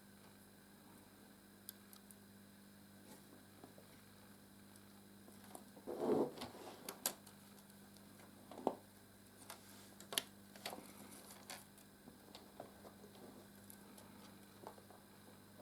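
Quiet handling noises of LEGO plastic pieces and thin light-kit cables being pulled through the chassis: scattered light clicks, with a louder rustle about six seconds in, over a faint steady hum.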